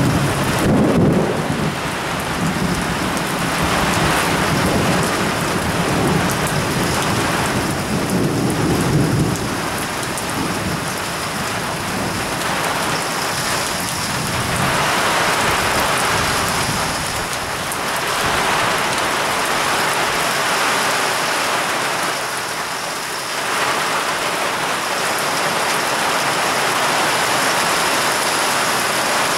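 Heavy downpour: a steady, loud hiss of rain pouring onto the platform and tracks, swelling in strength a few times, with a low rumble underneath during the first nine seconds or so.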